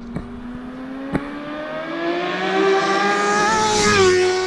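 Suzuki GSX-R 750 sport-bike engine held high in the revs, its pitch climbing slowly and getting louder, then falling off near the end. Two sharp clicks in the first second or so.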